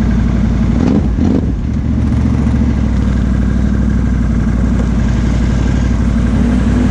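Can-Am Outlander XMR 1000 ATV's V-twin engine with a Big Gun aftermarket exhaust, running steadily at low throttle, with a brief change in note about a second in.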